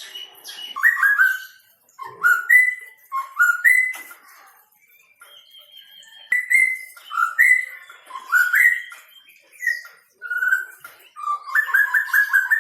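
White-rumped shama (murai batu) singing: loud whistled phrases that rise and fall, mixed with quick high chips, in several bouts separated by short pauses.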